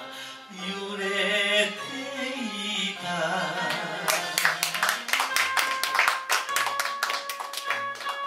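A man sings the closing line of a Japanese kayōkyoku song into a microphone over a karaoke backing track. About four seconds in the singing stops and the audience applauds while the instrumental outro plays on.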